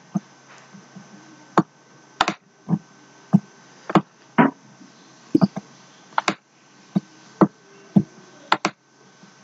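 Computer mouse clicking: a dozen or so irregular sharp clicks, several in quick pairs.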